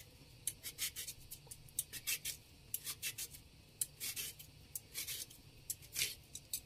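Vegetable peeler scraping skin off a raw sweet potato in repeated short rasping strokes.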